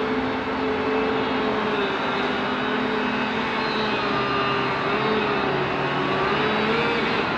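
Diesel engine of a tree-felling machine running steadily under load, its pitch wavering slightly up and down.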